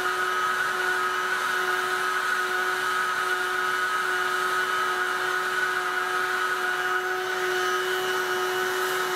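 Handheld hot-air gun with a narrow nozzle blowing steadily, its fan motor giving a constant whine over a hiss of air as it heats the plastic intake mesh to soften it.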